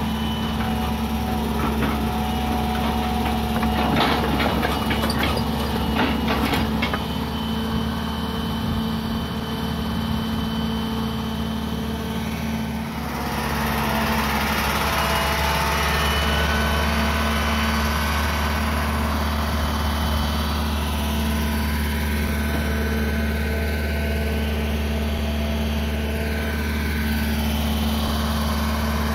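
Hitachi EX120 excavator's diesel engine running steadily, with a cluster of knocks and clatters about four to seven seconds in. About halfway through the engine note changes and grows a little louder as the machine tracks away.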